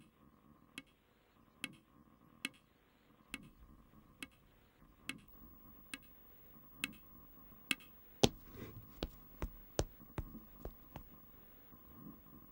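Sharp ticks, at first evenly spaced a little under one a second. About eight seconds in they turn louder, faster and uneven, over a faint steady hum.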